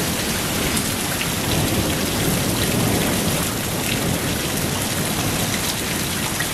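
Steady rain pouring down in a thunderstorm, with a low rumble of thunder swelling and fading a couple of seconds in.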